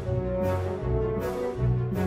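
Background music with sustained low notes and a steady beat of bright percussive hits.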